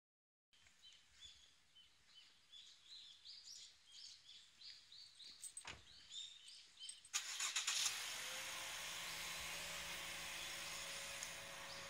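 Small birds chirping in quick, repeated short rising calls. About seven seconds in, a louder steady rushing noise with a low hum cuts in, like a vehicle running close by, and drowns the birds.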